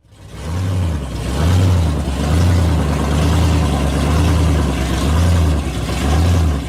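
American muscle car engine rumbling and being blipped, its pitch rising and falling over and over, about every three-quarters of a second.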